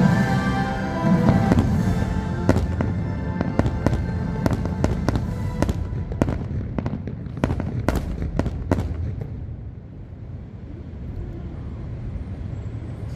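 Fireworks going off in a rapid run of sharp bangs and crackles, with the show's music still sounding in the first second or two. After about nine seconds the bangs stop and a lower rumble dies down.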